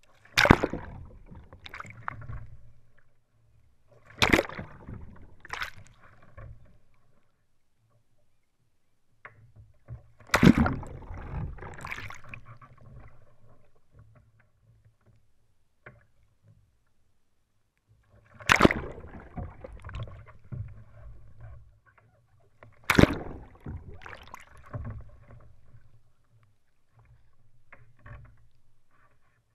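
Water splashing and sloshing around a North Shore Atlantic sea kayak as it is rolled over and back up with a Greenland paddle. There are several sharp, loud splashes a few seconds apart, each followed by water washing and dripping off the hull and paddler.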